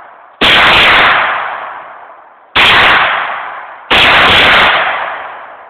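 Three shots from a 9 mm rifle, the first two about two seconds apart and the third just over a second later. Each is a sharp crack that trails off over a second or more.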